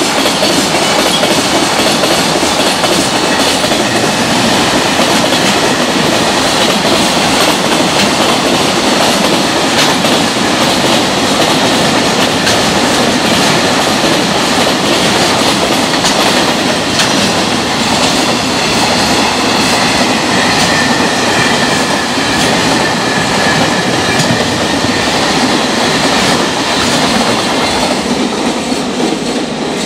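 Long freight train passing at high speed, its wheels clattering rhythmically over the rail joints above a steady rumble. The sound thins out near the end as the last wagons go by.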